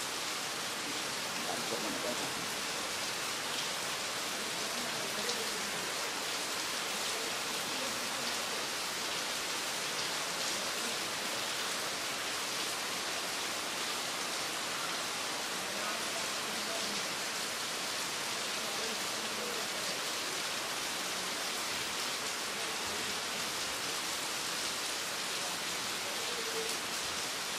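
Steady rainfall: an even, unbroken hiss of rain coming down on the ground and surroundings.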